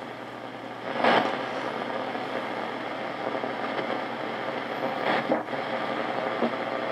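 JRC NRD-545 shortwave receiver's speaker output in AM mode while the tuning knob is turned: steady band static, broken by two brief loud swishes, about a second in and about five seconds in, as the dial sweeps across signals.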